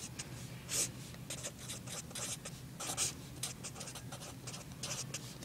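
Black felt-tip marker writing on paper: a quick, irregular run of short scratching strokes as symbols are written out.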